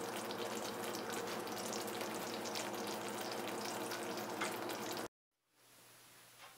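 Thick tamarind and garlic gravy sizzling in the oil risen to its surface in a pot, a steady crackle that cuts off abruptly about five seconds in, leaving near silence.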